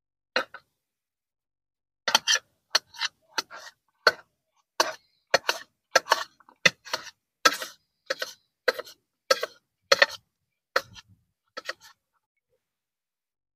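Kitchen knife chopping a cucumber into pieces on a plate, each cut ending in a sharp click of the blade on the plate. Uneven clicks about two a second, beginning about two seconds in and stopping near the end.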